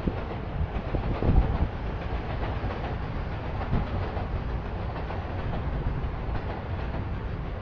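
Steady low rumble of city traffic, with a few louder knocks in the first two seconds.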